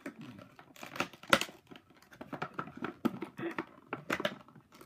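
Foil and clear plastic blind-bag packaging crinkling and tearing as it is opened by hand, a run of sharp, irregular crackles.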